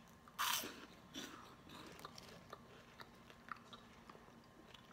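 Person biting into and chewing a crunchy cheese and pepper puff. One loud crunch comes about half a second in, followed by softer scattered crunching as it is chewed.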